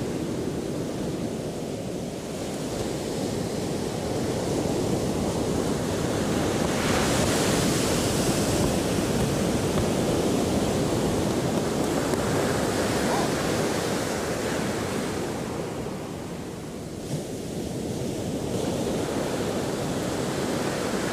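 Ocean surf washing onto the beach, a steady rush that swells and eases, loudest around the middle, with wind buffeting the microphone.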